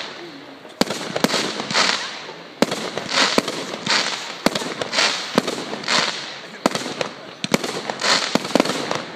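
Aerial fireworks going off in quick succession: sharp bangs of shells bursting, over crackling hiss from glittering stars that swells and fades about once a second.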